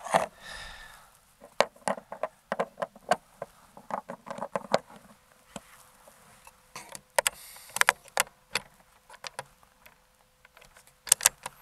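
Scattered light clicks and clatter of handling the Umarex Hammer .50 caliber airgun and its slugs, coming in several clusters with quiet stretches between.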